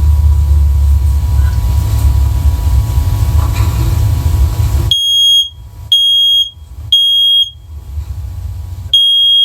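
First Alert OneLink smoke-only bridge alarm sounding its horn under test, answering the held test button. About five seconds in come loud high-pitched beeps in the three-beep smoke-alarm pattern: three beeps a second apart, a pause, and the next round starting near the end. Before the beeps there is a steady low rumble.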